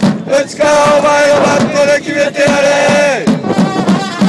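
Baseball cheering section singing a cheer song in unison, holding one long note for a couple of seconds before breaking into shorter phrases.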